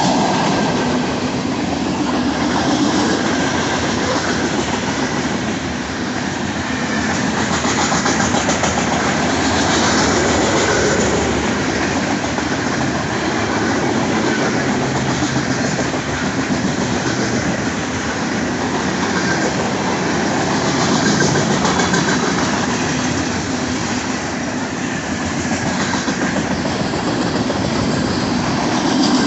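Union Pacific freight train's cars rolling past: a steady rumble of steel wheels on rail with a clickety-clack over the rail joints, swelling and easing a little as the cars go by.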